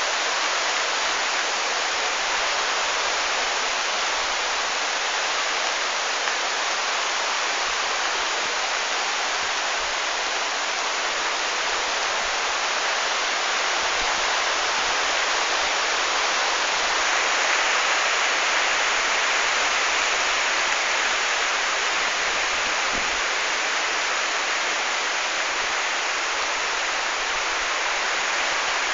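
Heavy rain pouring steadily, a dense even hiss that grows a little louder a bit past halfway through.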